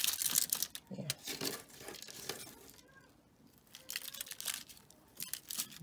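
Aluminium foil lining a baking pan crinkling as a hand and a metal spoon move through the sweet potato wedges, in uneven bursts with a quieter pause midway.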